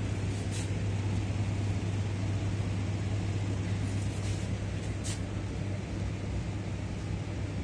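Steady low hum and background noise of a large shop interior, with a few faint high clicks.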